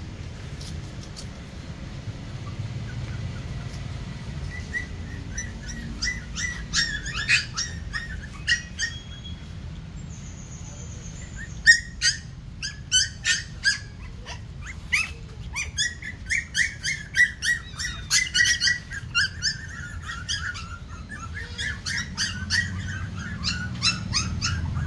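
A litter of young puppies whimpering and yelping: many short, high-pitched squeals, a few at first, then coming thick and fast through the second half.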